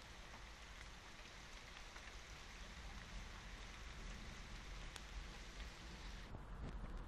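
Rain falling during a night thunderstorm: a steady hiss with scattered drop ticks. About six seconds in, the upper part of the hiss cuts off suddenly.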